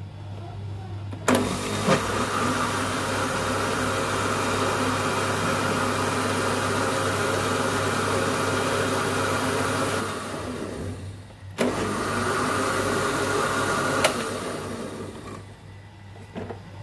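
Electric countertop blender running, whirring a thin batter of yogurt, gram flour, spices and water. It starts with a click a little over a second in, runs for about nine seconds and winds down. It then clicks on again for a second, shorter run of about two seconds and winds down once more.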